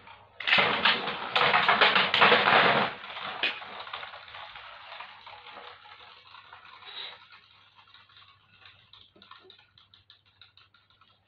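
Two Beyblade Burst spinning tops clashing and scraping against each other and the plastic stadium walls, loud and rattling for the first few seconds. Then one top spins on alone, its scraping fading into faint ticks.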